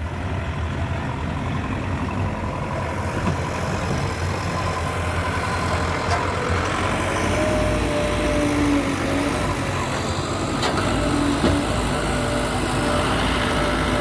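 JCB 3DX Plus backhoe loader's diesel engine running steadily with a low rumble while the machine works. From about halfway through, higher droning tones join in and the sound grows slightly louder, with one sharp click near the end.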